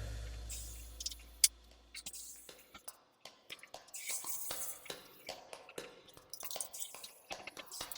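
Background music fading out, then scattered light clicks and taps of small metal hardware and tools being handled while new rollers are fitted to the dryer, with one sharper click about a second and a half in.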